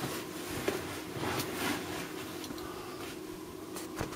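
Quiet room tone with a steady faint hum, a few soft rustles and a small click near the end.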